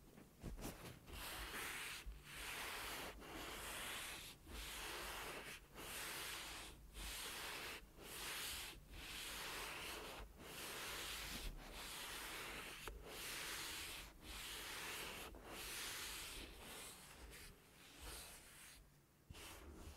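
Fluffy pads rubbed against the body of a Rode NT-USB Mini microphone close to its capsule, in even strokes about one a second, with brief pauses between strokes. The strokes turn softer near the end.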